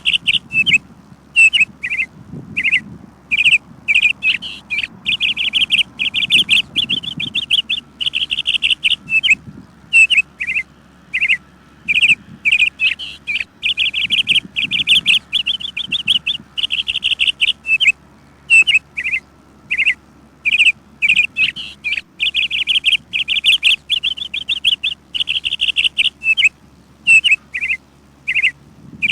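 Small birds chirping: a busy run of quick, high trilled calls, one after another with short breaks.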